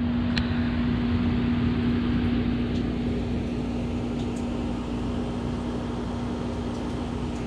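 Steady mechanical hum of a running machine, with one constant tone over a low noise and a few faint clicks.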